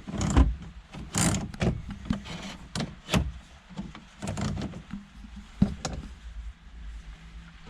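Irregular clicks and knocks from hands working the freshly fitted aluminium heater-control knobs on the dashboard panel, over a faint low hum.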